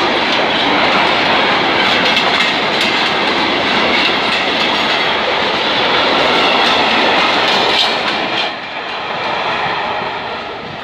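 Wagons of a container freight train rolling past close by: steady wheel-on-rail noise with a clickety-clack of wheels over the rail joints. It drops away after about eight seconds as the last wagons pass.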